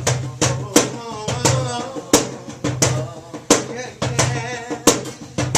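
Live soul band playing an instrumental groove: a drum kit keeps a steady beat over a bass line, with a wavering melodic line from guitar and keys above.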